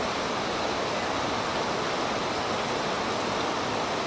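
Creek water rushing steadily over rapids, an even unbroken rush of running water.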